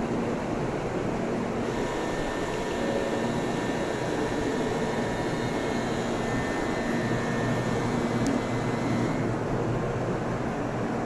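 Shinkansen bullet train pulling out of the station platform: a steady rushing rumble with a faint thin whine over it.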